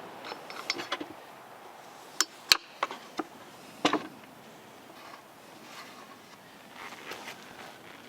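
Scattered sharp taps and knocks, the loudest about two and a half seconds in, as a part of a Poulan chainsaw is handled and tapped to show the dirt inside it.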